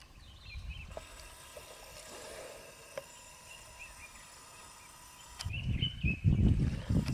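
Birds chirping over a steady high insect drone. From about five and a half seconds in, a loud, irregular low rumbling noise takes over.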